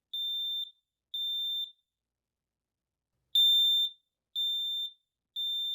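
Kidde KN-COSM-B combination smoke and carbon-monoxide alarm sounding its smoke signal. It gives a high, shrill beep in the temporal-three pattern: two beeps that end one set, a pause of about a second and a half, then a full set of three at about one a second. This pattern signals smoke.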